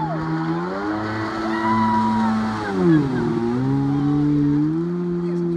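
Jet ski engine running at speed as the craft approaches and passes close by. It is loudest about three seconds in, where its pitch drops as it goes past, then holds steady as it moves off.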